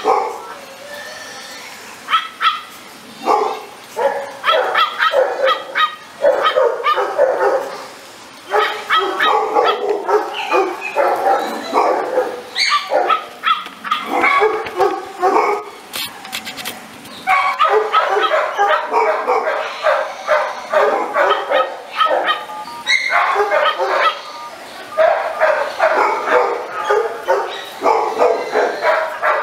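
Dog barking in long rapid runs of several barks a second, with short pauses between runs.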